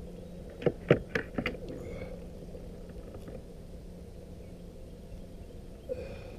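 A landing net with a caught bass in it is handled aboard a plastic kayak: a few sharp knocks and rattles about a second in, then a low steady hum, with another small knock near the end.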